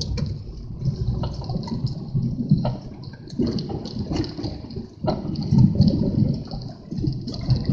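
Strong wind buffeting the microphone in uneven gusts, a low rumble that swells and drops every second or so, with a thin steady hiss above it.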